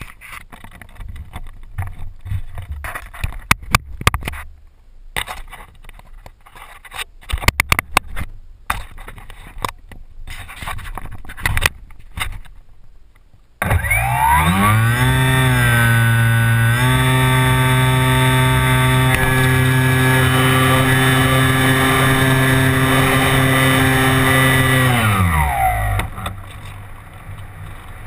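Clicks and knocks of handling for about the first half, then the ParkZone Radian electric glider's brushless motor and propeller start suddenly with a whine that rises in pitch, steps up once more, holds steady for about nine seconds, then falls and stops. A steady rush of air follows.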